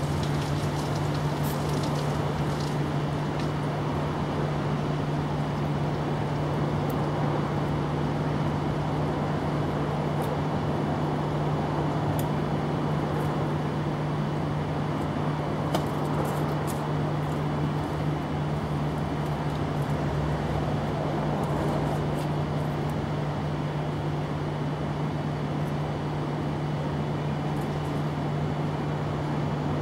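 Steady machine hum with a constant low drone and an even rushing noise underneath, unchanging throughout, with a few faint light ticks.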